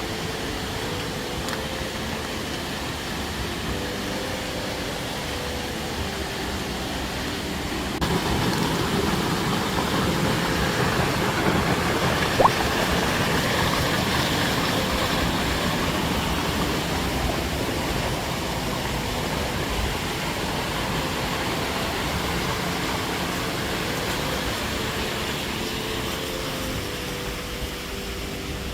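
Steady rush of water falling at a waterfall, turning louder about eight seconds in.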